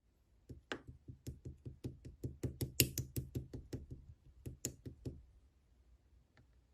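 A rapid run of light knocks or taps, about six a second for some four and a half seconds, then stopping, with one faint tap near the end.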